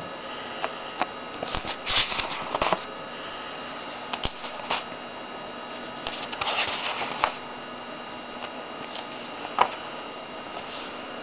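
Pages of a paper comic book rustling and being turned by hand, in a few short flurries with a sharp click near the end, over a faint steady hiss.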